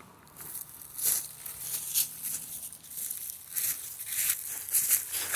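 Footsteps crunching through a thick layer of dry fallen leaves at a walking pace, a crisp crunch every half second or so.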